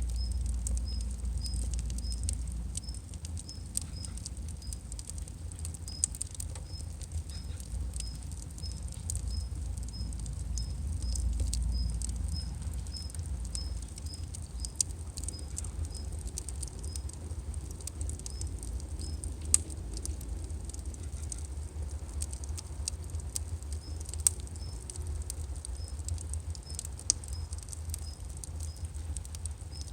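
Burning firewood crackling, with irregular sharp pops over a low, steady rumble of the fire.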